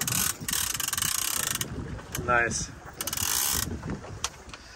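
Fishing reel ratcheting in two bursts of rapid clicking, one over a second long and a shorter one later, as line runs on the reel.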